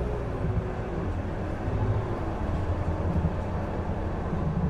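City transit bus running as it drives along, a steady low rumble with a faint whine slowly falling in pitch.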